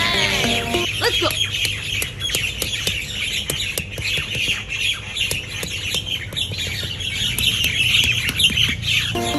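Birds chirping steadily, with a squawking call about a second in, and scattered short sharp taps throughout. A musical phrase cuts off about a second in and music comes back at the very end.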